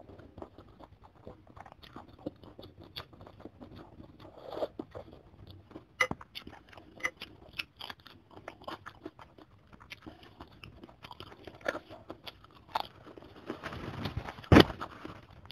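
Close-miked mukbang eating sounds: a person chewing and slurping chicken soup with glass noodles, many short wet clicks and crunches. One louder, sharper burst comes near the end.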